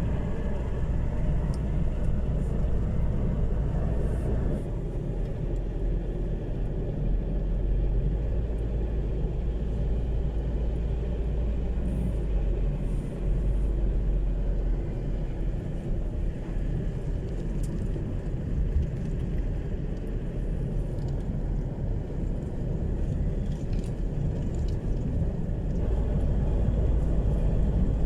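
Steady low rumble of a motor vehicle running, its deep engine and road noise holding without a break.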